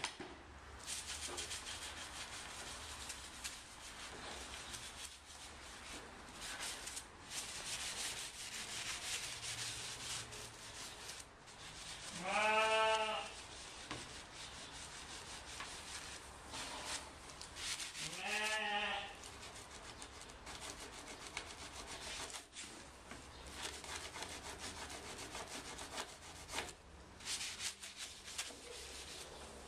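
Steady rustling and scraping in animal bedding, with two short pitched calls that rise slightly, about 12 and 18 seconds in.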